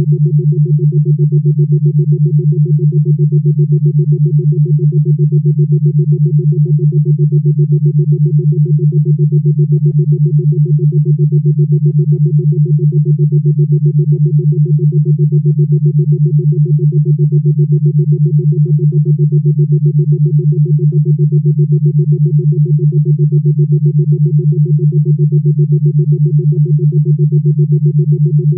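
Steady synthesized low drone tone with a fainter higher tone above it, pulsing evenly several times a second and never changing in pitch.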